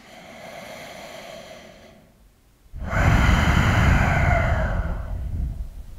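A person taking one full, slow breath: a quieter inhale of about two seconds, a brief pause, then a louder, longer exhale that fades out.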